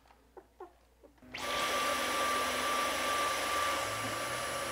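Cordless stick vacuum cleaner switched on about a second in, then running steadily with a high whine over a lower hum.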